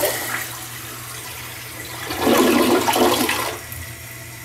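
American Standard Optum VorMax toilet flushing: a rush of water that surges loudest about two seconds in, then drops to the steadier hiss of the tank and bowl refilling.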